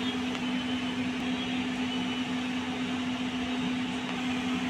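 Steady machine hum: one constant low tone over an even hiss, unchanging.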